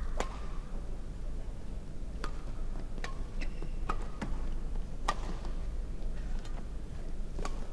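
Badminton rackets striking a shuttlecock in a rally, starting with the serve: sharp cracks every second or two, over a steady low hum of the hall.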